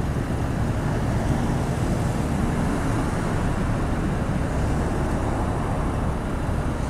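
Steady low rumble of a heavy Peterbilt tow truck's diesel engine pulling an articulated bus slowly, with road noise from the moving vehicles.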